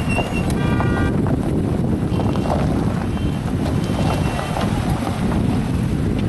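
Wind buffeting the microphone, a loud steady low rumble, with a brief high-pitched tone about a second in.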